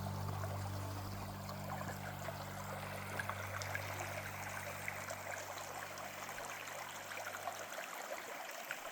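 A stream running with a steady babbling rush of water. A low held music chord sits underneath and fades out near the end.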